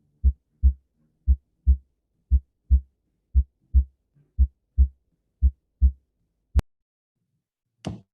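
Recorded normal heart sounds: six pairs of short low thumps, about one pair a second, each pair being S1 (closing of the atrioventricular valves) followed by S2 (closing of the aortic and pulmonary valves). The beats stop about three-quarters of the way in, followed by a single sharp click and, near the end, a short rustling noise.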